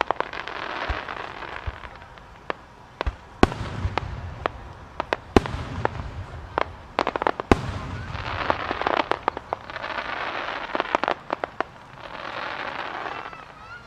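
Aerial firework shells bursting in a long irregular string of sharp bangs and pops, with a few heavier booms in the middle, and swells of rushing noise between the reports.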